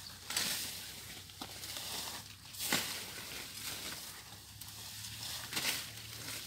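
Rustling and crackling of wet leaves and undergrowth being handled close by, with a few short, sharp rustles, the loudest nearly three seconds in.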